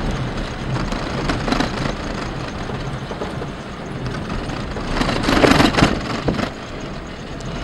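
Vehicle driving over desert sand, heard from inside the cabin: a steady engine and tyre rumble, with a louder rush of noise about five seconds in.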